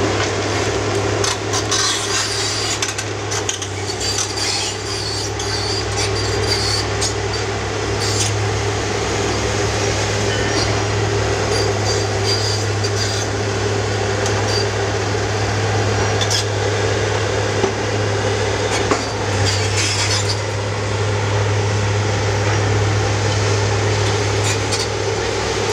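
Demolition excavators working on a concrete building: a steady low diesel drone with scattered crunching and clattering of broken concrete.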